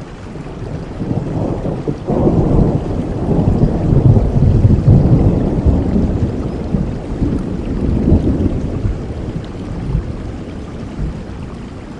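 Steady rain falling, with a long roll of thunder that swells about two seconds in and slowly dies away near the end.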